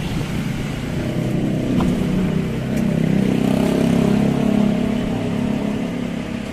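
A motor vehicle's engine passing close by, swelling to its loudest in the middle and then fading.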